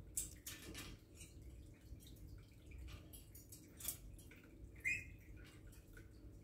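Scattered light clicks and taps of an African grey parrot's beak and feet on a metal play-stand perch as it climbs and hangs upside down, with a brief high squeak about five seconds in.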